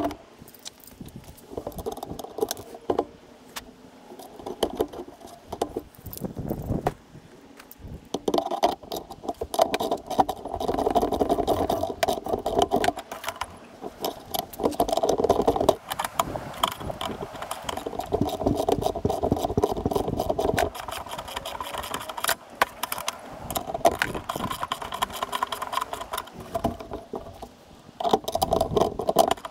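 Hardware on a Toro snowblower's handle being fitted and tightened by hand: small metal clicks and rattles, with stretches of denser rubbing and rustling.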